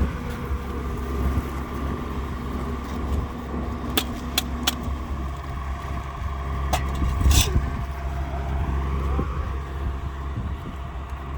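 Heavy diesel engine of a concrete truck running steadily at a concrete pour, with a few sharp clicks around the middle.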